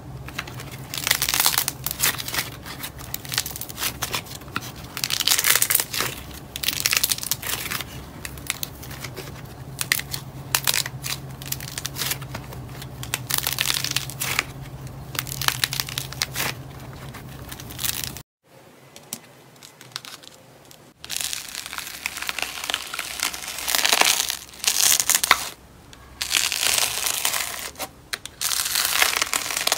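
Hands squeezing and pulling apart thick pink slime with crunchy yellow bits, making irregular bursts of crackling and crinkling. After a short silent gap, a hand presses bead-filled slime in a plastic tub, with denser crackling.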